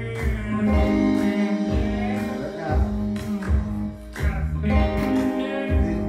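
Fender electric guitar, capoed at the third fret, strummed in a steady rhythm through the song's chords, with a voice singing along.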